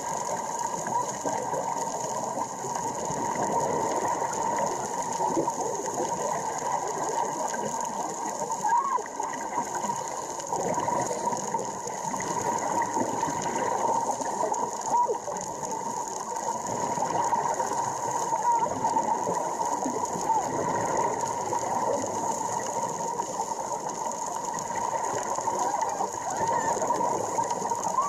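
Underwater ambience recorded through a dive camera's housing: a dense, steady crackle under a constant hum and hiss.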